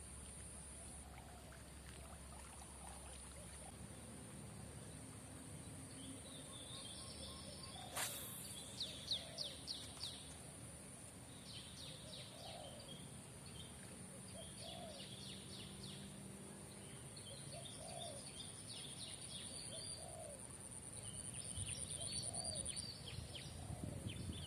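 Outdoor birdsong: small birds chirp in short bursts while a dove coos over and over, about every second and a half, over a steady high-pitched tone. One sharp click comes about eight seconds in.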